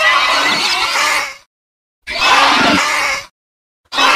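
Edited Gallimimus dinosaur call sound effect: three harsh calls, each about a second long, separated by short dead silences. The third starts near the end and runs on.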